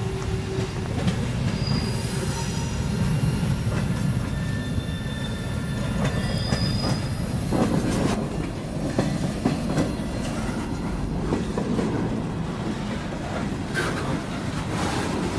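Freight cars rolling past while being shoved, the lead car a CSX open hopper: steel wheels rumbling on the rails and clacking over joints, with a few brief high wheel squeals. The rumble grows louder as the cars come close.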